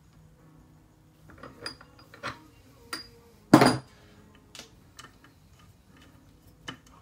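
Metal tools and parts clinking and clattering on a workbench as they are handled: about eight separate knocks, the loudest and longest about halfway through.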